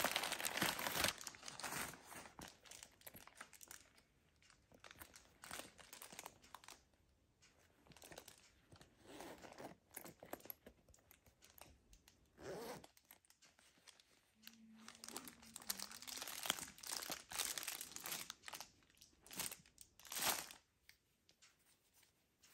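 Crumpled paper stuffing crinkling and rustling as it is pulled out of a quilted leather shoulder bag, loudest in the first second. Scattered soft rustles and handling noises follow as the bag and its fabric dust bag are handled.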